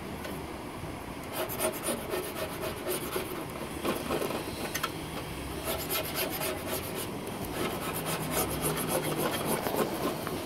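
Razor blade scraper scraping the stuck remains of a torn vacuum-motor gasket off a car wash vacuum's metal tank lid, in quick repeated strokes that start about a second in.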